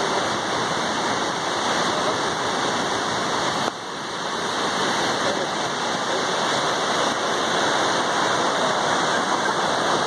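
Steady rushing roar of Jog Falls, its water plunging down the gorge. The level dips suddenly a little under four seconds in, then builds back up.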